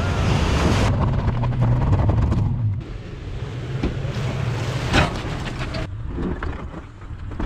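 Toyota Tacoma pickup fording a river: a loud rush of splashing water, then the engine's low rumble for a couple of seconds. After that, quieter scattered clicks and crunches with one sharp crack about five seconds in.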